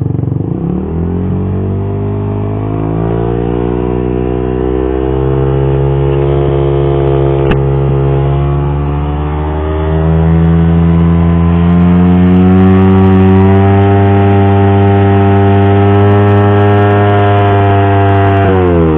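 Suzuki GSX-R150's single-cylinder engine breathing through an R9 Misano aftermarket exhaust, revved on the stand: the pitch climbs steadily over about twelve seconds, holds high near the top of the rev range, then drops suddenly as the throttle is released near the end.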